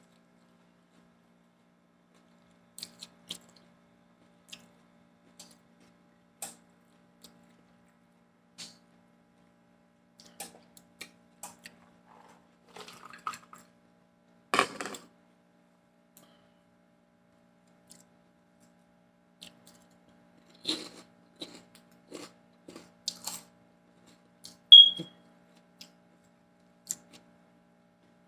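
Close-up eating sounds: scattered bites and chewing of lettuce-wrapped tacos, small crisp crunches and clicks with quiet gaps, a louder crunch about halfway through. Near the end a short, sharp high-pitched clink stands out as the loudest sound, over a faint steady low hum.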